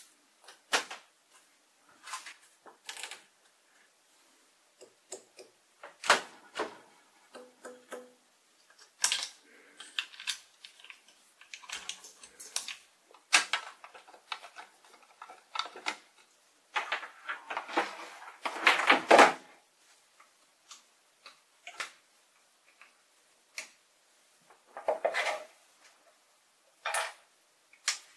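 Irregular clicks, taps and scrapes of a screwdriver and hex keys on the metal and printed parts of a small benchtop lathe during assembly, with a denser run of clattering about two-thirds of the way through.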